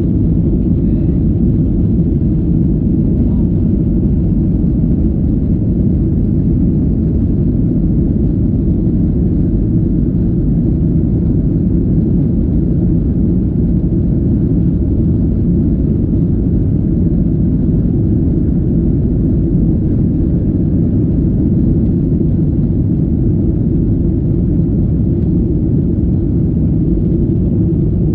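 Steady low rumble of an airliner's cabin with the engines running, even throughout with no rise or fall.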